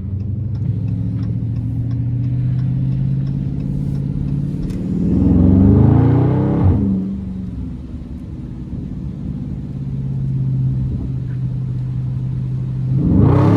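Dodge Charger Scat Pack's 392 HEMI V8 running steadily, then revving hard about five seconds in and dropping back to a drone about two seconds later, with a second rev rising near the end.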